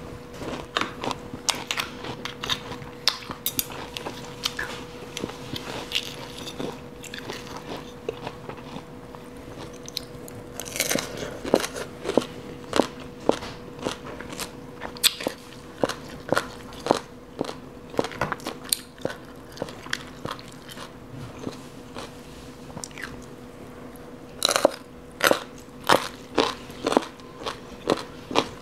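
Close-miked chewing of crunchy shredded green papaya salad (som tam): repeated crisp crunches and bites, coming thickest in bursts about a third of the way in and again near the end. A faint steady hum runs underneath.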